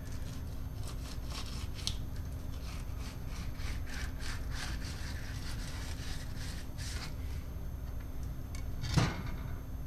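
Fillet knife slicing through a yellowtail snapper on a plastic cutting board: a run of short scraping strokes as the blade works the fillet free along the ribs, with one louder scrape near the end.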